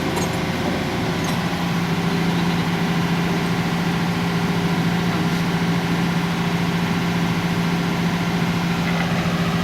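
Heavy machine's engine running steadily, its hum growing a little stronger about a second and a half in.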